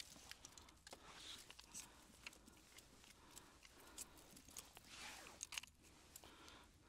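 Near silence: a faint hiss with scattered small clicks and rustles, a few slightly louder ones about five seconds in.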